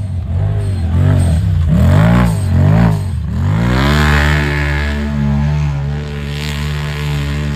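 Side-by-side UTV engine revving hard under load, rising and falling in quick throttle bursts for the first few seconds, then held at steady high revs.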